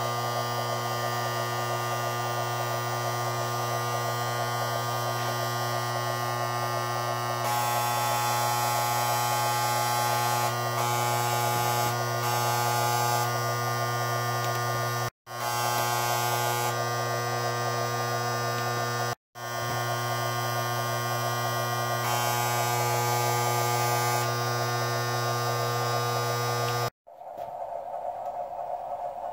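Steady electrical hum with a buzzy edge. It drops to silence for an instant twice, then stops abruptly near the end, leaving a softer hiss.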